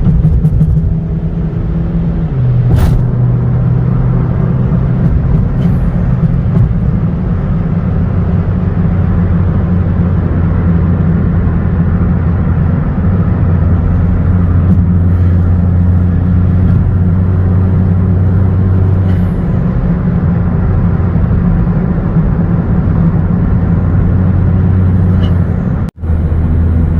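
Chevrolet Cruze's turbocharged four-cylinder engine, with an AEM air intake and straight-piped exhaust, heard from inside the cabin while accelerating to highway speed, the turbo really loud. The steady engine note steps in pitch a few times, and the sound cuts out briefly near the end.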